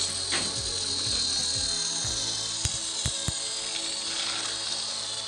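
Small electric motor of a battery-powered toy train whirring steadily as it runs along plastic track, with a few sharp clicks about halfway through.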